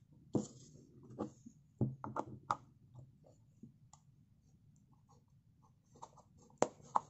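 Light clicks and knocks from a small homemade speaker box being handled and a USB cable plug being pushed into its port, with two sharper clicks close together near the end.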